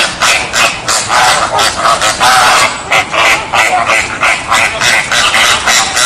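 Flock of flamingos calling: a loud, unbroken run of overlapping goose-like honks, several each second.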